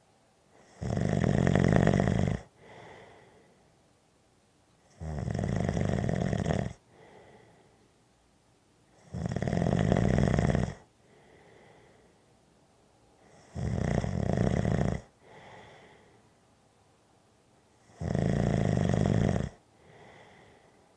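A person snoring in a slow, even rhythm: five loud snores about four seconds apart, each lasting a second and a half or so, with a softer breath after each.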